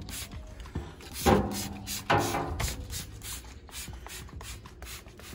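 Quick rubbing strokes of a brush and wet cleaner scrubbing a furnace blower wheel's metal fins. Two short squeaks fall in pitch about one and two seconds in, the loudest sounds.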